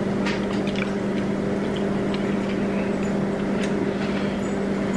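A steady machine-like hum with a strong low tone and several higher tones holding level throughout, with a few faint smacks and ticks of spaghetti being eaten with plastic forks over it.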